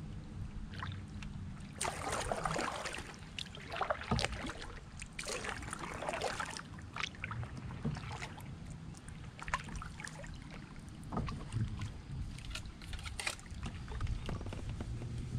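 Canoe paddle strokes in the water: the blade swishes and splashes every few seconds, with sharp little clicks and drips between strokes over a steady low rumble.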